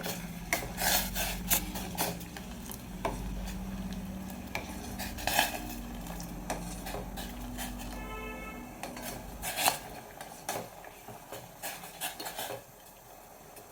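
A spoon stirring in a pot of ginger water at the boil, clinking and scraping against the pot in irregular sharp knocks. A steady low hum runs underneath and stops about two-thirds of the way through.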